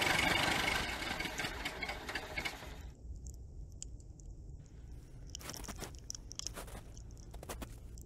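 A car engine sound effect running, cutting off abruptly about three seconds in, followed by a few scattered short scrapes and clicks.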